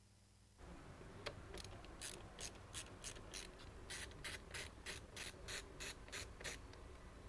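Ratcheting screwdriver clicking in a steady run of short strokes, about three a second, as the CPU cooler's mounting screws are loosened.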